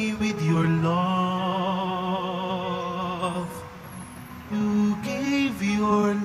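Slow communion hymn sung by a solo voice with vibrato over sustained accompaniment. One long note is held from about a second in, then a new phrase starts near the end.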